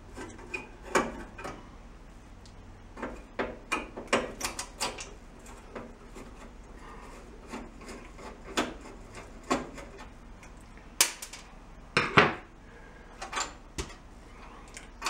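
Screwdriver, screws and the metal spark-electrode bracket of a Hardwick gas range being handled as the bracket's flat-head screws are taken out: scattered light clicks, scrapes and metal taps, with a louder pair of knocks about twelve seconds in.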